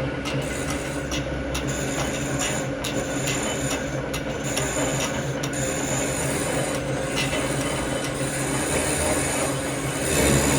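Lathe running with a steady hum while its cutting tool scrapes and rasps against a motor pulley being turned, a little louder near the end.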